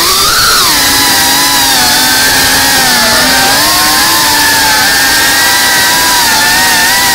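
FPV quadcopter's brushless motors and propellers whining loudly, the pitch following the throttle: it rises briefly about half a second in, dips around three seconds in, then holds fairly steady.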